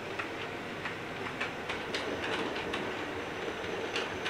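Model train running on the layout's track: a steady running noise with irregular light clicks from the wheels on the rails.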